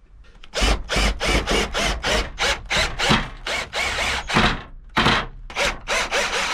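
Cordless drill driver running in short repeated bursts, several a second, as it drives screws through wooden bed slats into the steel beam beneath.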